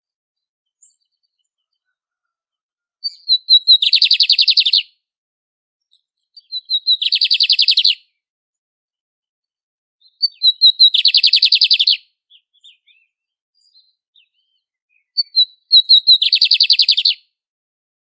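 Lined seedeater (bigodinho) singing: four phrases, at about 3, 6, 10 and 15 seconds, each opening with a few separate high notes that run into a fast trill of about a second.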